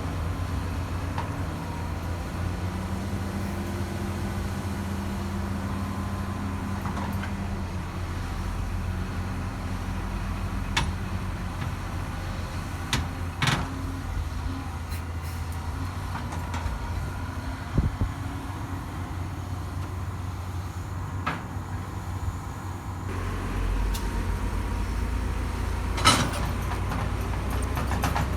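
Diesel engine of heavy construction machinery running steadily under work, with a few sharp metallic knocks, the loudest about halfway and near the end. The engine grows louder about three quarters of the way through.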